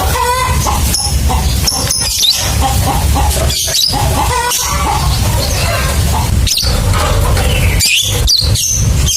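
Lovebirds calling: a string of shrill chirps, quick pitch sweeps and clicks, over a steady low hum.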